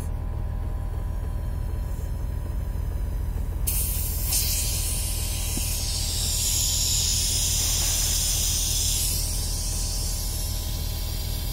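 Car's built-in load-leveler air compressor running with a steady low hum while inflating a basketball, with air hissing through the inflation needle from about four seconds in, loudest a little past the middle.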